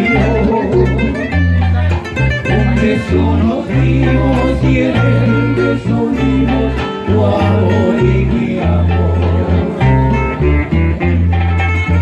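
A bolero trio playing live: plucked acoustic guitars, with a requinto picking the melody, over an electric bass line.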